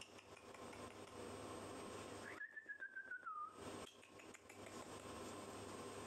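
A person whistling one short note, held for just over a second. It rises quickly, wavers as it slides slightly downward, and drops at the end.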